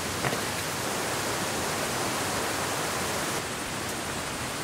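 Steady wash of water noise from rain and running water, an even hiss with no rhythm, with a faint tick about a quarter of a second in.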